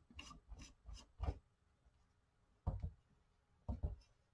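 Faint handling sounds of a paintball marker's barrel tip being twisted off by hand: a few soft knocks and rubs in the first second and a half, then two more later.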